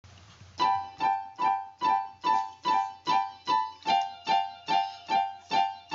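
Keyboard intro of a hip hop beat: a piano-like chord struck about two and a half times a second, each fading before the next. The chord steps lower about four seconds in.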